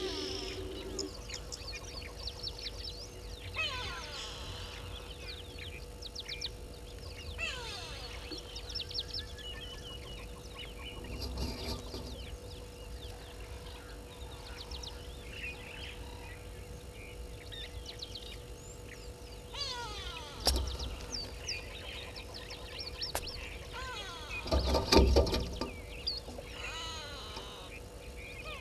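Several wild birds chirping and trilling in the bush, with a louder burst of calls about 25 seconds in. A faint steady hum and a low rumble lie underneath.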